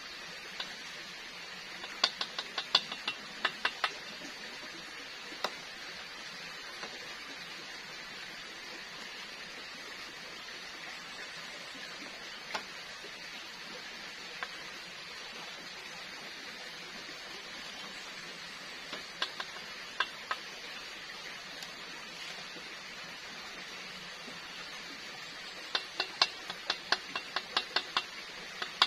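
Chopsticks or tongs clicking against a small metal frying pan in quick clusters while frying food is stirred and lifted out, over a steady hiss.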